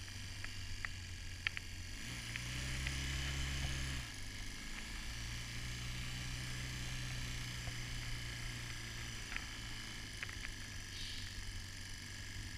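Engine of a handlebar-steered vehicle running steadily as it is ridden over a snowy track, a low drone that rises in pitch and loudness for a couple of seconds about two seconds in, then settles back, with a few faint clicks.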